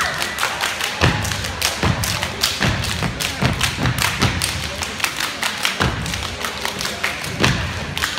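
Step team stepping on a hardwood gym floor: a fast, uneven rhythm of stomps and hand claps struck in unison.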